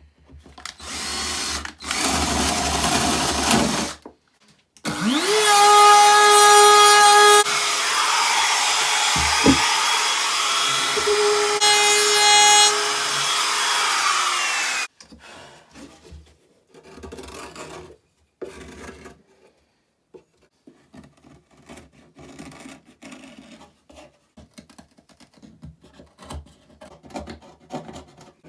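A power tool cutting the sound hole in a ukulele's wooden top. After a short first run, about five seconds in it spins up to a steady whine and runs for about ten seconds. Then quieter, on-and-off rubbing and scraping on the wood as the edge of the hole is cleaned up.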